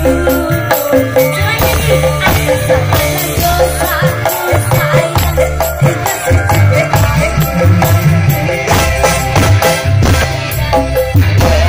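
Loud live band music over a PA system, in the style of an Indonesian dangdut stage show, with a strong bass line and steady percussion.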